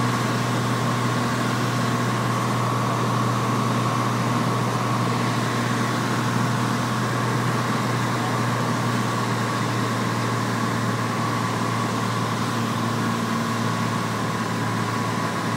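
Piper Lance's six-cylinder Lycoming piston engine and propeller, with rushing airflow, heard from inside the cabin as a steady drone with a thin steady whine above it, during the landing.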